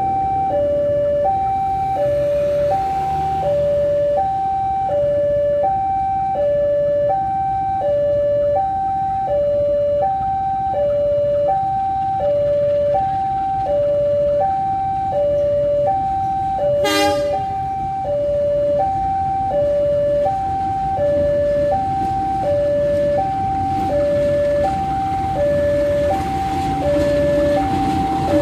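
Railway level-crossing warning alarm sounding an even two-tone ding-dong, about one pair a second, over the low rumble of an approaching CC 201 diesel locomotive that grows louder near the end. A brief sharp sound cuts in about seventeen seconds in.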